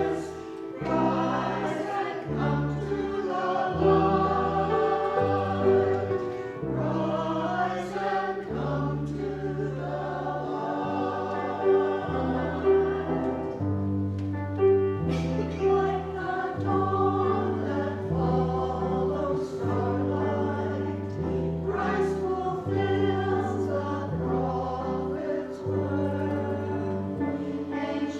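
Voices singing a hymn together over instrumental accompaniment, the bass moving in held notes that change about once a second.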